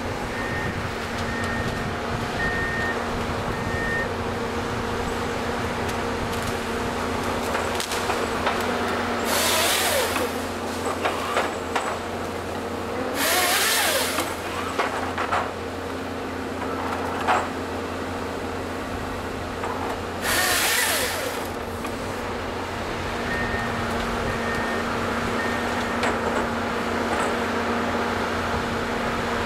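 Volvo EC210 excavator's diesel engine running steadily under hydraulic load as its LogMax 7000XT harvester head feeds and delimbs eucalyptus stems, with scattered cracks and knocks. Three loud, roughly one-second bursts from the harvester head's chainsaw crosscutting logs stand out, about ten, thirteen and twenty seconds in.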